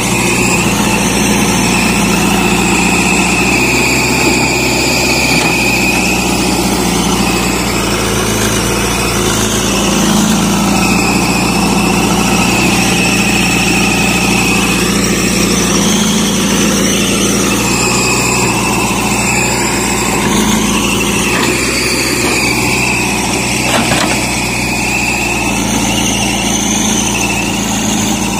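JCB 3DX backhoe loader's diesel engine running steadily while the backhoe digs soil. A high whine comes and goes every few seconds.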